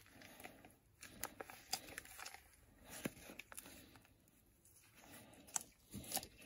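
Faint crinkling and crackling of a plastic grease packet being squeezed and wrung out by gloved hands as CV joint grease is pressed into the joint's cup, in short scattered bursts with quiet gaps.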